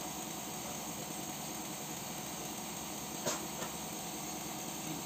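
A steady machine-like drone, with two short sharp clicks a little over three seconds in.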